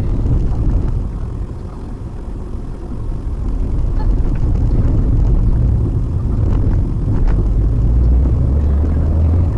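Steady low road and engine rumble inside the cabin of a moving Maruti Suzuki WagonR. It eases off for a couple of seconds about a second in, then comes back up.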